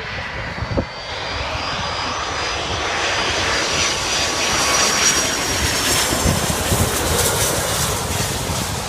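Airplane engines running loud as an aircraft passes close, the rushing noise growing louder over the first few seconds, with a thin high whine over it.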